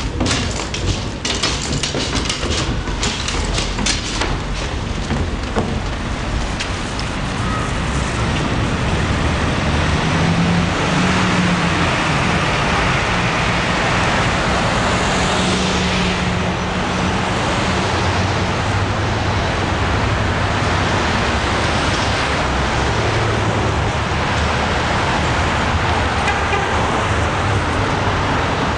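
Street traffic: cars and trucks passing in a steady wash of engine and tyre noise, with one vehicle's engine hum standing out for several seconds about a third of the way in. In the first few seconds there are footsteps on concrete stairs.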